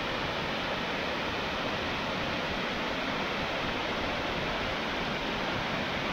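Waterfall pouring down a rocky gorge: a steady, even rush of falling water.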